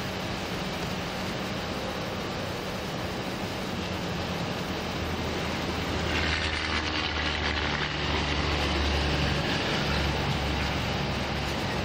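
Road traffic noise with a low engine drone. A vehicle passes close by about six to eight seconds in, its rumble and tyre hiss swelling, then easing.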